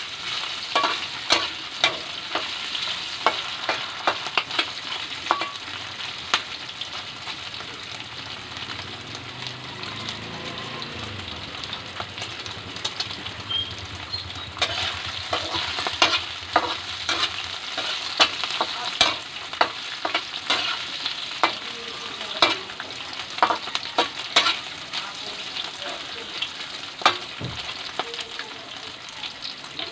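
Cubes of pork sizzling in hot oil in a metal wok, browning, while a metal spatula stirs them with frequent scraping clinks against the pan. A faint low hum rises and fades in the middle.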